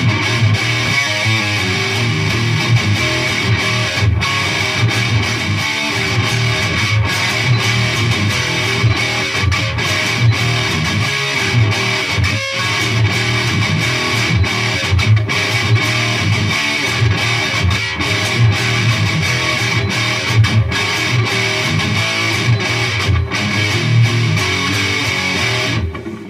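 Electric guitar played through a Peavey Triple XXX II tube amp head on its high-gain channel: heavily distorted metal riffing with a few very brief breaks, stopping suddenly just before the end.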